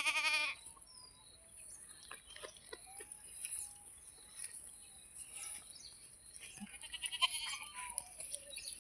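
Goat bleating: one loud, quavering bleat at the start and a fainter one about seven seconds in, over a steady high hiss.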